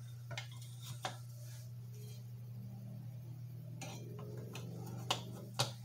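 A few light metal clicks and taps as the center draft oil lamp's burner parts, the gallery and flame spreader, are fitted back onto the burner, over a steady low hum.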